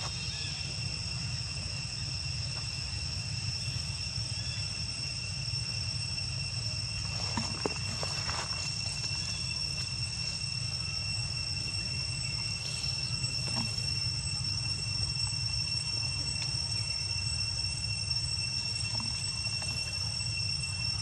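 Steady, unbroken high-pitched insect trilling, crickets or similar, over a low background rumble, with a few faint taps near the middle.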